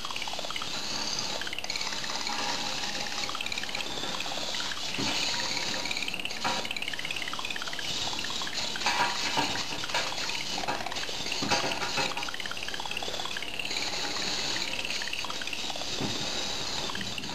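Small hobby servo and gear motors whirring in a wavering pitch, starting and stopping as a little Arduino robot's pan-tilt head and wheels track a moving hand, with a few clicks and knocks around the middle.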